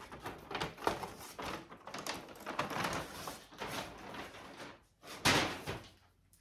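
Brown paper shopping bag rustling and crinkling as it is handled and opened to take out a shoe box, with a louder crinkle about five seconds in.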